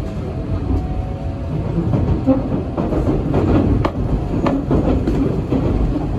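Shinkansen train running, heard from inside the carriage: a steady low rumble, with a few sharp clicks over the track in the middle.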